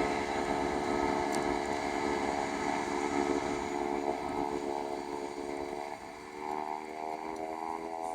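Executive jet's engines whining in the distance, a steady buzzing hum whose pitch wavers and rises a little near the end.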